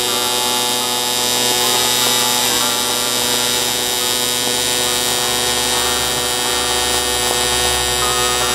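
AC TIG welding arc on cast aluminum, a steady electric buzz with a high hiss. It runs unbroken, with the arc held on the whole time.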